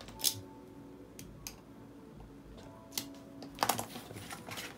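Steel ruler and a sheet of pattern paper handled on a wooden table: a few scattered light clicks and taps, then a quick run of clicks and paper rustle about three and a half seconds in.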